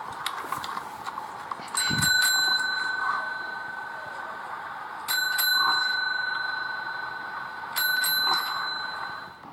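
A bell struck three times, each strike ringing on one clear note and fading slowly until the next.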